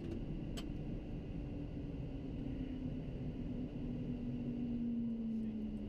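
Private jet's cockpit noise during the landing rollout: a steady rumble of engines and wheels on the runway, with a low tone that slowly falls in pitch as the aircraft slows. A single short click about half a second in.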